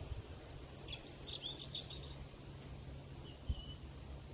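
Small birds chirping and twittering in short, quick notes, with thin high calls, over a steady low background rumble. One short knock sounds about three and a half seconds in.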